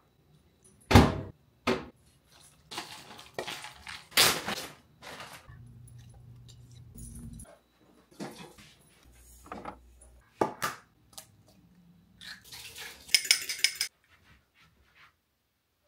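Kitchen clatter: plastic food containers and bowls being handled and set down on a counter, a string of separate sharp clunks and clicks.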